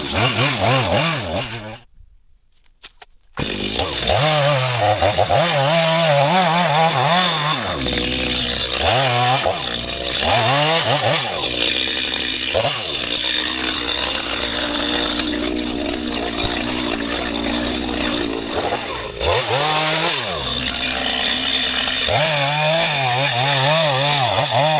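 Stihl MS 250 two-stroke chainsaw sawing a dead coconut trunk, engine revs rising and falling with the throttle. It cuts out for about a second and a half near the start.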